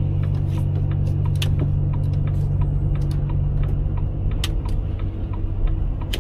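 Lorry's diesel engine running steadily under way, heard from inside the cab, with scattered light clicks and rattles; the engine note eases a little about four seconds in.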